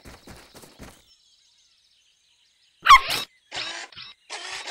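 Cartoon puppy: quick pattering steps in the first second, then after a pause one loud bark that falls sharply in pitch about three seconds in, followed by a few short, rough, noisy sounds.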